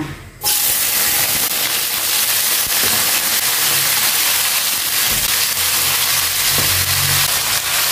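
Sliced shallots, garlic, chilies and green tomatoes dropped into hot oil in a stainless steel wok: a loud sizzle breaks out suddenly about half a second in and keeps going steadily as the aromatics fry.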